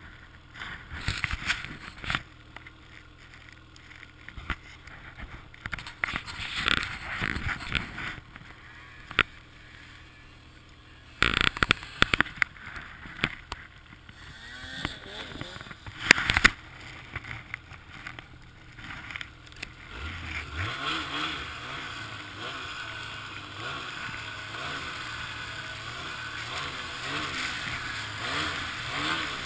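Wind buffeting the helmet-mounted microphone while a snowmobile's engine comes closer, its pitch rising and falling as it climbs. From about two-thirds of the way in, a steady, louder two-stroke engine of a Ski-Doo 800 E-TEC XRS snowmobile runs as it moves through deep snow.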